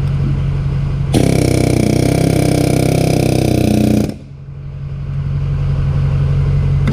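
Pneumatic air hammer firing against the stuck head of a backhoe hydraulic cylinder, a loud burst of about three seconds that starts about a second in and stops abruptly. A steady machine hum runs underneath.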